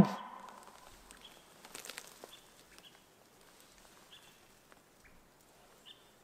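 The last moment of an elk bugle, its whistle sliding down into a low grunt and stopping right at the start. It is followed by faint rustling about two seconds in and a few faint, short high chirps.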